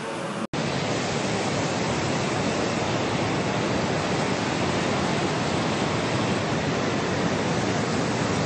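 A rocky mountain stream running fast over boulders in white-water rapids, heard close: a steady, even rush of water. A snatch of music cuts off sharply about half a second in, just before it.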